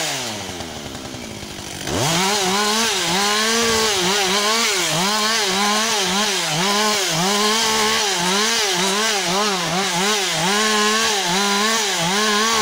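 Husqvarna 562 XP two-stroke chainsaw cutting wood. The engine drops off right at the start and revs back up about two seconds in, then runs under load with its pitch dipping and recovering again and again as the chain bites.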